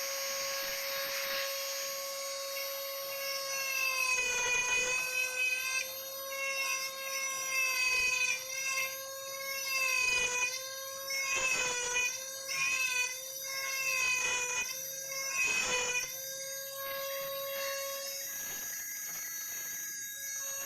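High-speed rotary carving tool whining steadily as its bit cuts grooves in wood. The pitch sags briefly again and again as the bit bites in under load, then recovers.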